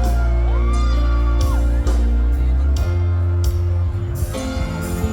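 Live band music, loud, with a heavy bass line and drums and a gliding melodic line over it in the first second or so.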